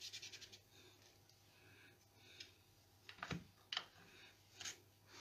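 Near silence: a soft scratchy rubbing of an ink dauber on paper fades out in the first half second, then a few faint clicks and taps as craft tools are handled on the table.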